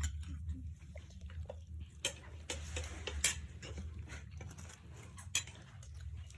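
Cutlery and dishes clinking during a meal: a few sharp clicks and taps, the clearest about two, three and five seconds in, over a steady low hum.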